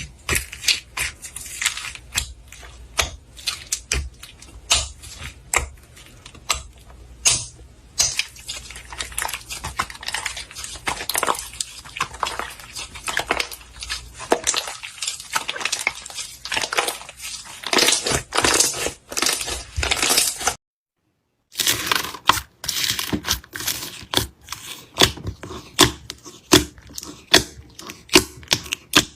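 Slime being squeezed and worked by hand, giving a rapid, irregular run of crackling, popping clicks that breaks off for about a second two-thirds of the way through.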